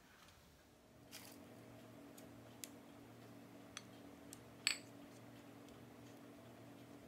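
Faint kitchen handling sounds over a steady low hum: several light clicks and taps, the loudest a bright, ringing clink a little past two-thirds of the way through.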